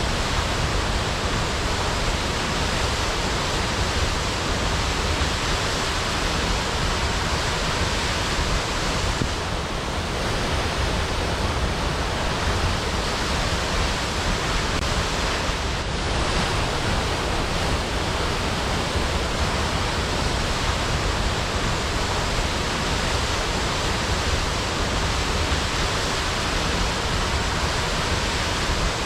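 Waterfall: falling water making a steady, even rush with a deep rumble underneath.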